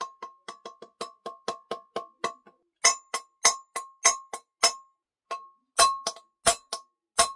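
Hammer tapping a new wheel bearing into the front wheel hub of a Kawasaki GPZ900R, each strike ringing with a metallic ping. Light, quick taps about four a second give way about three seconds in to harder, slower blows, with a short pause and then a few more hard blows near the end as the bearing is driven home.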